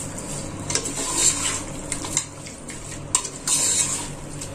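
A spoon mixing raw chicken in a thick yogurt-and-spice marinade in a dark metal pot, with irregular scrapes and clicks of the spoon against the pot.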